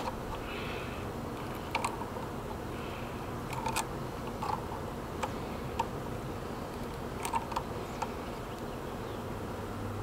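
Scattered light metallic clicks and taps of pliers working a brass fitting on a vacuum pump, over a steady faint background hum and hiss.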